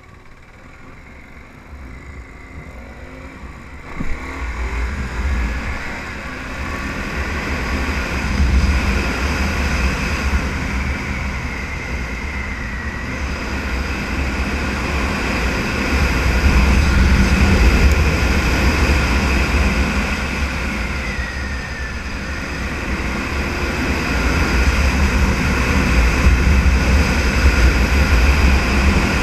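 Motorcycle engine running under way with wind rushing over the microphone, its pitch rising and falling with the throttle through the curves. It gets louder about four seconds in.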